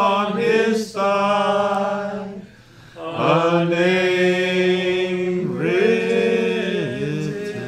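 A cappella vocal chanting: long held sung notes with slow swoops between them, in phrases of a couple of seconds each, with a brief break about two and a half seconds in.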